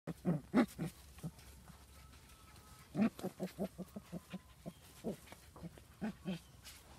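Puppies making short, rapid little calls while they mouth and tug at a towel in play. The calls come in quick runs: a loud few near the start, then a longer run about three seconds in.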